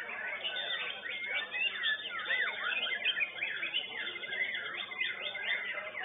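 White-rumped shamas (murai batu) singing: a continuous, dense stream of fast whistled sweeps, trills and rapid repeated phrases, the phrases overlapping.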